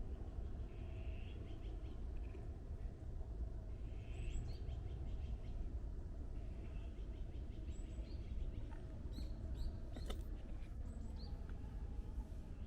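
Small birds chirping in short repeated trills and rising calls, in several groups, over a steady low background rumble.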